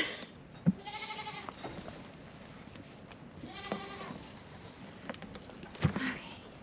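Nigerian Dwarf goats bleating, two calls: one about a second in and another about four seconds in. Two sharp knocks, one just before the first bleat and one near the end.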